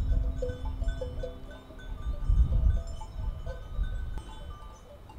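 Small bells on grazing sheep clinking irregularly, many short ringing notes at different pitches, over a low rumble that swells about halfway through.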